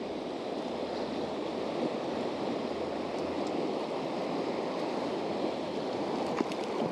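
Steady rush of flowing river water, with a single sharp click near the end.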